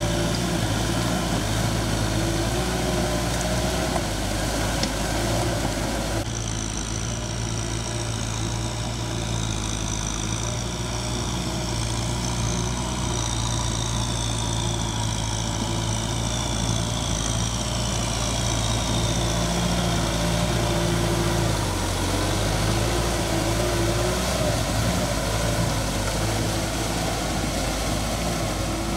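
Kubota M6040S tractor's diesel engine running steadily under load while it drives a rotary tiller through flooded rice-paddy mud. About three quarters of the way through, the engine's pitch dips briefly and then recovers.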